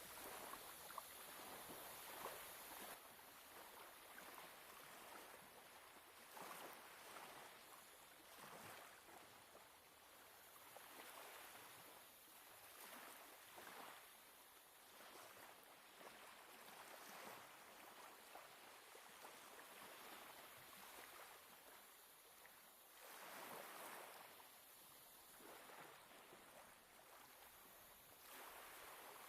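Faint Black Sea waves lapping and washing at the shore, swelling and fading every few seconds.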